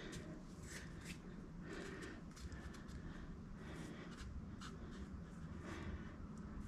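Faint scratchy rustling of hands working grass seed into planter-box soil: a string of short, uneven brushing and patting strokes.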